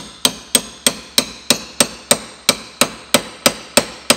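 Steady hammering with a heavy hammer on a steel punch, about three sharp metallic strikes a second, each with a brief ring. The punch is driving down into the hatchet's old wooden handle in the eye to knock it out, but the handle is stuck fast and does not move.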